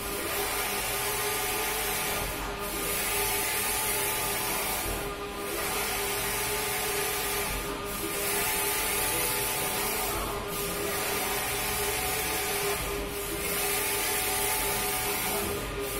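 Large-format inkjet printer printing a flexi (MMT) banner: the print-head carriage sweeps back and forth with a steady rushing whir, dipping briefly about every two and a half seconds as it reverses at the end of each pass, over a constant hum.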